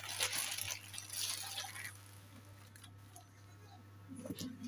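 Rustling handling noises as a flat indoor digital TV antenna and its cable are handled, strongest in the first two seconds, then a few soft ticks and knocks near the end.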